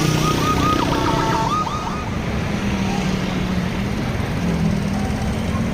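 A bus's telolet basuri musical horn plays a quick run of short warbling notes that stops a little under two seconds in. Under it runs a steady low engine hum and road and traffic noise.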